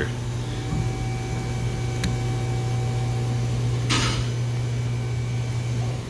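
Steady low machine hum with faint higher steady whines, cutting off near the end. A single sharp click about two seconds in and a short hiss or scrape about four seconds in.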